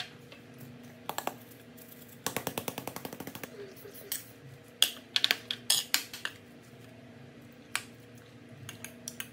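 Metal spoon scraping and clinking against a plate while mixing rice: a quick run of taps about two seconds in, then scattered single clinks.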